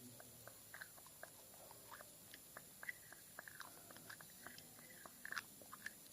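Slow, soft tapping: quiet small taps and clicks, roughly three a second at an uneven pace.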